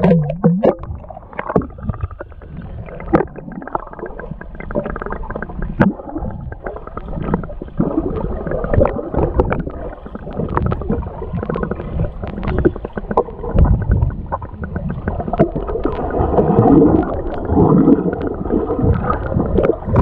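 Muffled underwater gurgling and bubbling picked up by a camera held under the water, with frequent small clicks and knocks.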